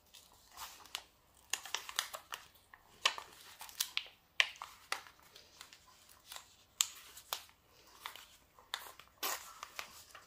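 Protective paper sheet being peeled up from the adhesive surface of a diamond painting canvas, giving irregular crackles and rustles; the sheet tears as it comes away.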